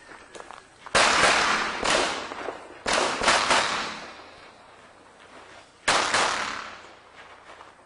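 Shots from a Glock 20 pistol in 10mm Auto, about six in all: two a second apart, a quick group of three, and one more a couple of seconds later, each trailing off in a long echo.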